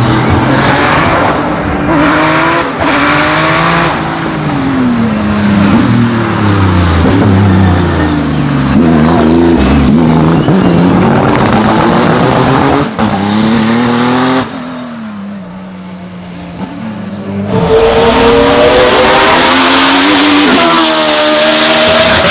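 Hill-climb race car engine run hard, its note climbing and dropping again and again through the gears, with a couple of sharp cracks. About two-thirds of the way in it falls to a quieter, lower drone for about three seconds, then comes back loud and climbing.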